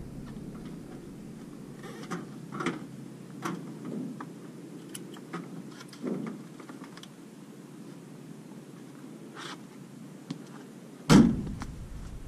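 Scattered clicks and knocks, with one loud thump about eleven seconds in.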